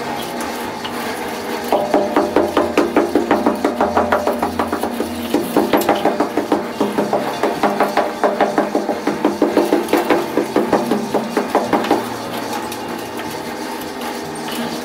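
Screed bar sawn rapidly back and forth across a sand-and-cement mortar floor bed, levelling it for tiles: a rhythmic scraping of about four to five strokes a second that starts a couple of seconds in and stops a few seconds before the end.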